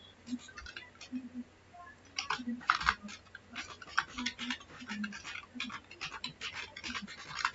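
Typing on a computer keyboard: an irregular, rapid run of key clicks starting about two seconds in.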